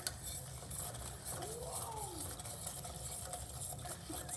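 Faint, steady sizzling and bubbling of cranberries cooking in melted butter and sugar in a pan on the stove. A faint tone rises and falls once, about a second and a half in.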